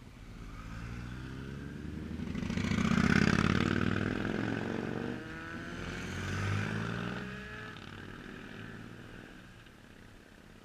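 Motorcycles riding past one after another. Their engine notes swell and fade as each goes by: the loudest about three seconds in, then a BMW GS adventure bike carrying two riders about six and a half seconds in.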